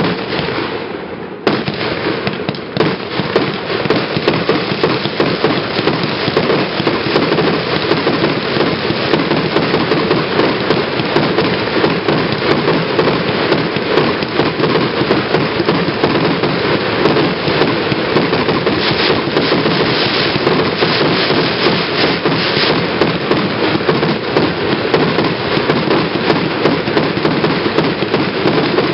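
A fireworks set of linked cakes lit from one fuse firing continuously. Rapid launches and bursts run together into a dense crackle, with a brief lull about a second in.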